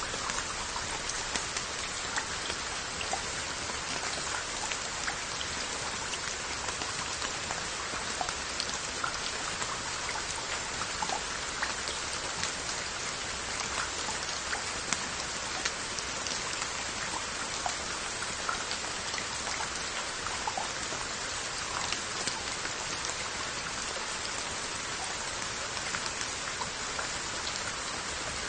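Steady rain falling on Korean onggi earthenware jars and their lids: an even hiss of rain, with many separate drops tapping sharply on the pottery.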